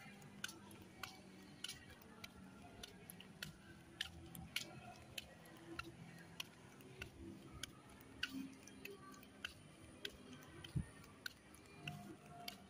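Footsteps on a wet paved path at a walking pace: a sharp click or slap with each step, a little under two a second.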